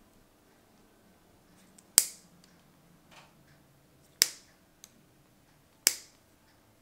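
Toenail nippers snapping through a toenail three times, sharp clicks about two seconds apart.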